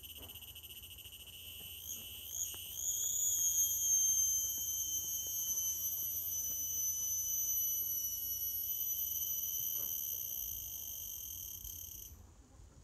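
Insects droning in a continuous high-pitched chorus of several stacked tones, swelling a couple of seconds in, holding steady, then cutting off suddenly near the end.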